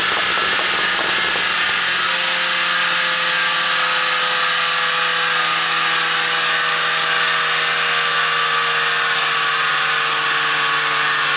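2011 VW Golf GTI Mk6's turbocharged 2.0-litre four-cylinder running steadily through its exhaust at a held engine speed, its pitch drifting slowly down.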